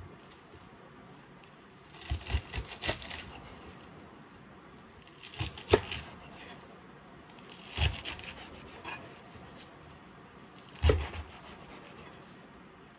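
Kitchen knife cutting through bunches of fresh spinach on a wooden cutting board. Each group of crisp, crunchy cuts through the stems ends in thuds of the blade on the board, in four or five short bursts a couple of seconds apart.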